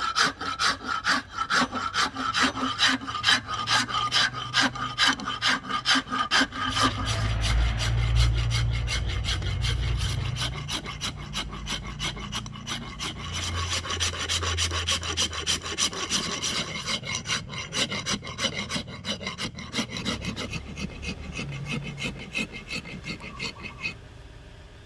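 Steel hand files, flat and round, shaping a Siamese rosewood axe handle: a quick, even run of rasping strokes that dies away near the end. A low rumble sits under the strokes for a while in the middle.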